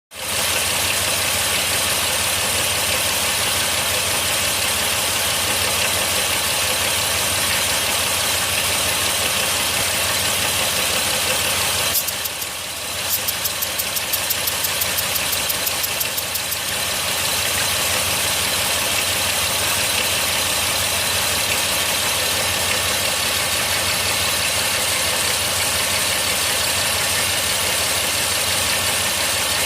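Chrysler 3.3-litre pushrod V6 running at idle, with an intermittent misfire on one cylinder that turned out to be caused by failing lifters. About twelve seconds in the sound dips briefly, then a run of evenly spaced pulses follows for about four seconds before the steady running returns.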